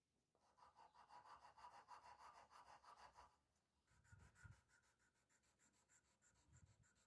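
Near silence, with a faint rubbing sound.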